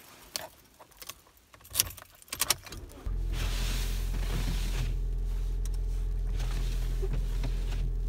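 Keys jangling and a few sharp clicks inside a car. About three seconds in, a steady low hum sets in suddenly: the car's engine idling, heard from inside the cabin.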